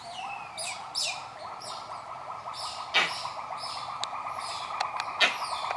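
A small bird chirping: short high notes that each fall in pitch, repeated roughly every half second, over a steady buzzing drone. Two sharp clicks come about three seconds and five seconds in.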